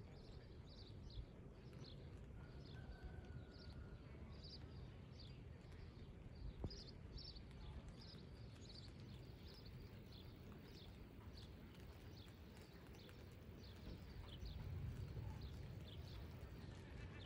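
Faint outdoor ambience: a low steady rumble with a short high chirp or clink repeating about twice a second, and one sharp tick about a third of the way in.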